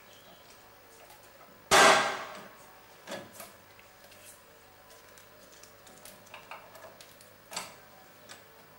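Parts and tools being handled during steering work on a ride-on mower: one loud sharp knock about two seconds in that rings briefly, then a few lighter knocks and small clicks.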